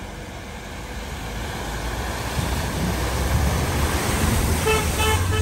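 A van driving through deep floodwater at a ford: the rush and splash of its bow wave over a low engine rumble, growing louder as it passes close.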